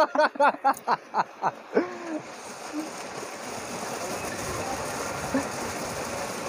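A man laughing in quick bursts for about two seconds, then a steady rush of water pouring from a motor pump's outlet pipe into a concrete tank.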